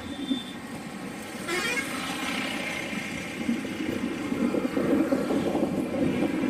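Road traffic running past, with a vehicle horn sounding briefly about a second and a half in. A vehicle engine grows louder in the second half.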